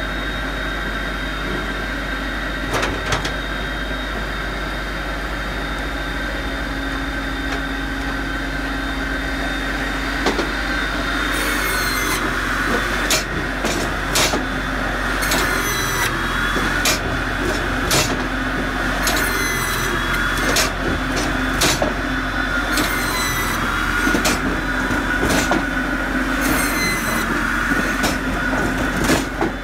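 Posch SpaltFix S-375 circular-saw firewood processor running with a steady hum and a high whine. From about a third of the way in, short metallic clatters with a high squeal come every one to two seconds as the log is fed through and the joystick-controlled hydraulics work.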